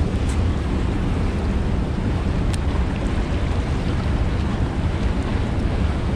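Steady rush of fast, churning water below a dam spillway, with wind buffeting the microphone as a low rumble.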